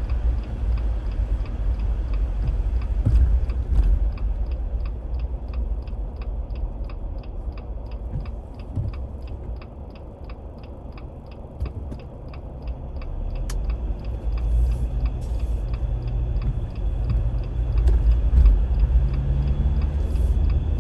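Road and tyre rumble inside a moving car, easing off for a few seconds near the middle and building again. Through the middle stretch a turn-signal indicator ticks evenly, about three clicks a second, then stops.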